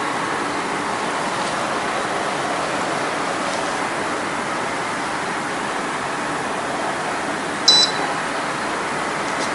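A single short, high electronic beep from the foam density meter, about three-quarters of the way through, over a steady background hiss.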